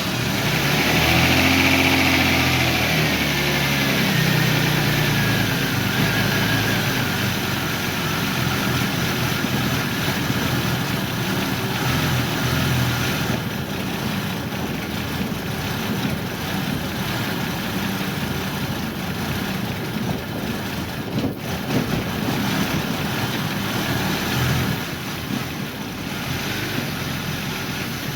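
Lexus GS300's 2JZ inline-six engine running just after its first start following a head-gasket replacement. It runs fast at first and settles down in pitch over the first few seconds, then idles steadily. A single sharp knock comes about three-quarters of the way through.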